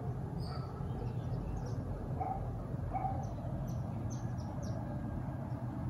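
Birds chirping, with short high calls scattered throughout and two lower calls about two and three seconds in, over a steady low rumble.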